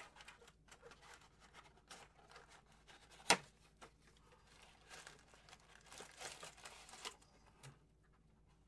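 Trading-card packs and wrappers crinkling and tearing as they are opened and the cards handled: quiet, scattered crackle with one sharp click about three seconds in and a denser stretch of crinkling a little past the middle.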